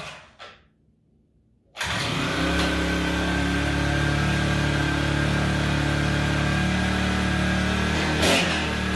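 Eskimo P1 Rocket propane ice auger's 40cc engine starting up suddenly about two seconds in, then running steadily, with a brief louder burst near the end.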